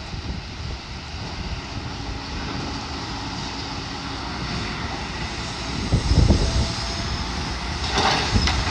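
Demolition excavator's diesel engine running as a steady drone, with wind buffeting the microphone. Louder knocks and clatter of debris about six and eight seconds in.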